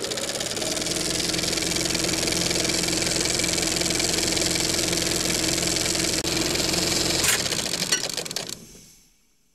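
Film projector running: a steady, fast mechanical clatter with a hum. About seven seconds in it stops with a few clicks and fades away.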